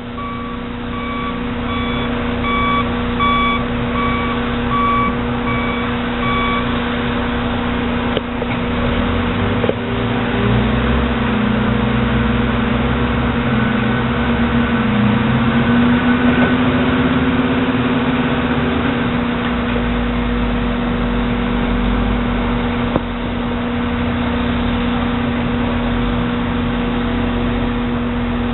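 Caterpillar 320E L excavator's six-cylinder diesel running steadily, with a warning alarm beeping about twice a second for the first six seconds or so. Partway through, the engine pitch rises and falls as it works under hydraulic load, with a few knocks and a deeper rumble near the end.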